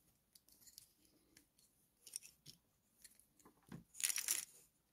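Plastic Lego bricks clicking and knocking as they are pulled apart and put down on a table, with a short, louder clatter of pieces about four seconds in.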